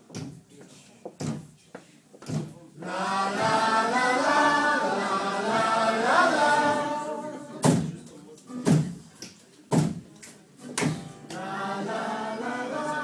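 Group of voices singing together in long held phrases, broken in the middle by four sharp beats about a second apart before the singing resumes.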